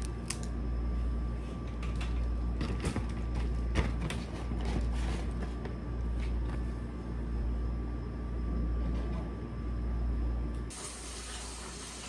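Plastic clothes hangers clicking and clacking as laundry is hung on a rail, a handful of sharp clicks over a steady low hum that swells and fades every second or two. Near the end the hum stops and a steady hiss takes over.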